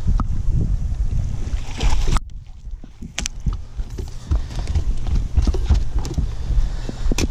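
Wind buffeting the microphone with a low rumble, with scattered light knocks and clicks, the clearest about three seconds in and near the end.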